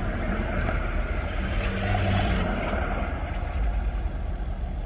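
Road traffic rumbling, heard from inside a stopped car, with a vehicle passing about two seconds in.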